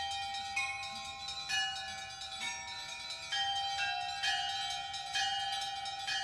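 Russian Orthodox church bells ringing the call to the All-Night Vigil. Several bells of different pitches are struck one after another every half second to a second, and their rings overlap.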